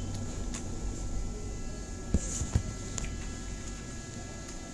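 Computer mouse clicking: a few faint clicks, the two sharpest about half a second apart a little past two seconds in, over a low steady hum.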